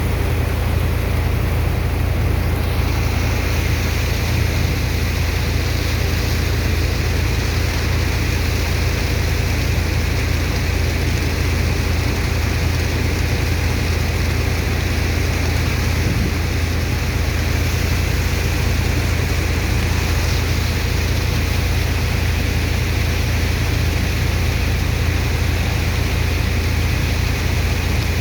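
Sand dredger's engine and water pump running steadily: a deep constant hum under an even rushing noise, which turns a little brighter about two and a half seconds in.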